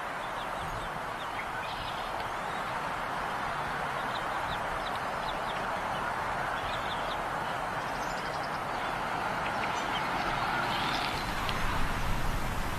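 Bald eagle nest ambience: a steady rushing noise with faint, short high peeps scattered through it, heard while an adult feeds a young eaglet.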